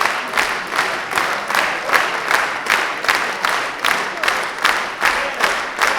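A large concert crowd applauding at the end of a concert, clapping together in a steady rhythm of about two claps a second.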